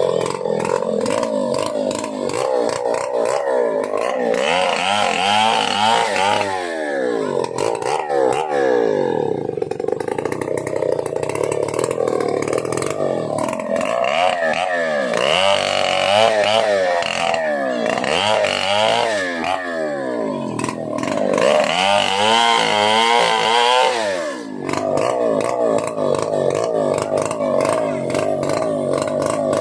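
Stihl 070, a large two-stroke chainsaw, running at high revs, its engine pitch repeatedly dropping sharply and climbing back.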